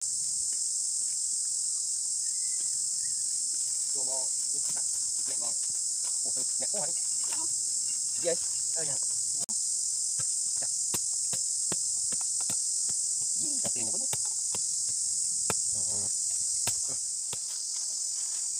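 Steady, high-pitched insect chorus, continuous and even throughout, with a few faint ticks mixed in.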